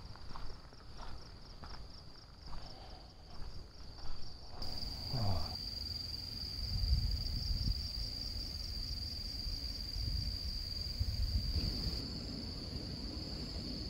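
Shrill insect chorus holding one high pitch, pulsing rapidly for the first few seconds, then an unbroken drone. Wind rumbles on the microphone underneath.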